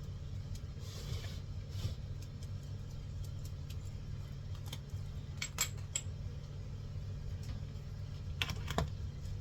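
A utensil clinking lightly against a bowl a few times as fruit chaat is mixed, with small clusters of clicks about halfway through and again near the end, over a steady low hum.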